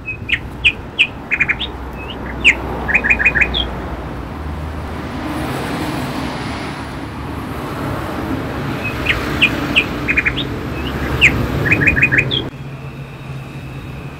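A songbird singing two bouts of quick chirps and whistled notes, several seconds apart, over a steady rushing background with a low hum. The background drops abruptly near the end.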